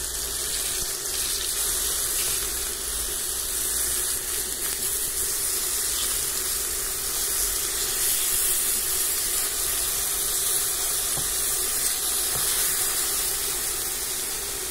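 Banana halves sizzling steadily as they fry in hot oil in a nonstick frying pan.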